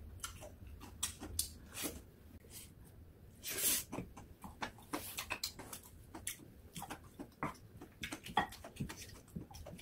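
Close-up eating sounds: chewing and lip smacking, with a wooden spoon scraping and tapping against a stone pot as rice is scooped out, in irregular small clicks and scrapes. There is one louder rasping sound a little after three and a half seconds in.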